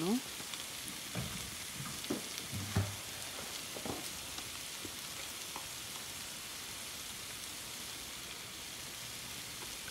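Sliced onions frying in a pan, a steady soft sizzle, with a few light taps and scrapes of a spatula in the first few seconds.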